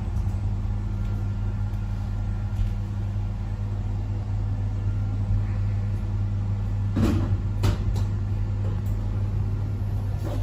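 Passenger lift running: a steady low hum, with a few short knocks about seven to eight seconds in.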